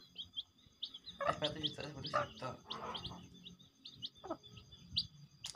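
Village chicken chicks peeping over and over in short, high chirps while they feed.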